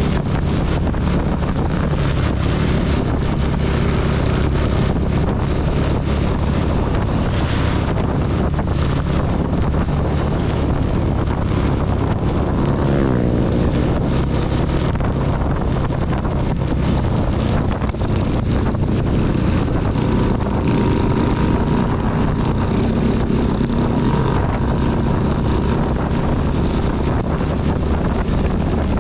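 CB250 motorcycle engine running steadily while riding, with wind and heavy rain noise on the microphone. About 13 seconds in, the engine note glides through a brief change in pitch.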